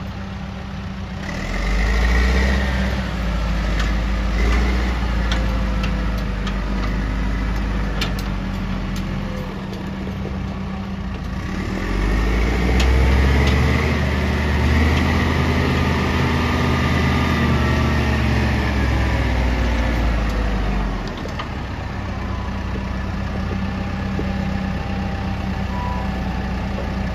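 Caterpillar 924F wheel loader's diesel engine running steadily, rising under load twice as the loader is driven, from about two seconds in and again from about twelve seconds in, with a high whine riding over it, then dropping back to idle about twenty-one seconds in. A few sharp clicks and knocks sound along the way.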